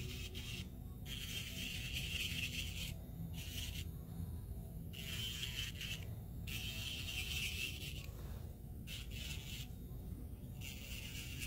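Electric nail drill (e-file) at its lowest speed with a cuticle-prep bit, scraping over the nail plate around the cuticle in short passes of one to two seconds with brief pauses between. It is cleaning and prepping the cuticle area before a gel overlay.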